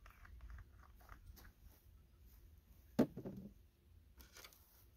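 Faint handling sounds from a light balsa model airplane being worked in the hands: scattered soft clicks and one sharp knock about three seconds in, over a low wind rumble on the microphone.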